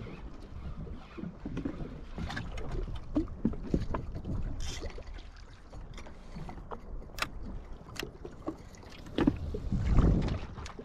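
Water slapping and sloshing irregularly against the hull of a drifting Yamaha FXHO jet ski, with scattered sharp clicks and knocks and a louder slap near the end. No engine is running.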